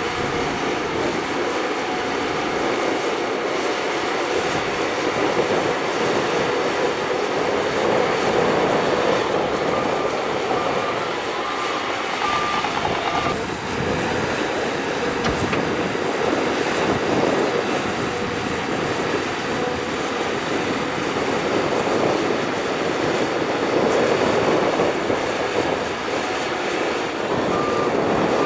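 Shantui crawler bulldozer working, its engine running under load with the steel tracks clanking and squealing steadily. A short repeated beeping is heard about ten seconds in and again near the end.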